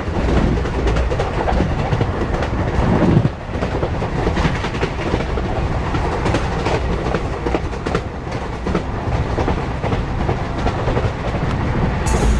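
Passenger train running along the track, heard from beside an open carriage door: a steady rush of running noise with the clickety-clack of the wheels over the rails.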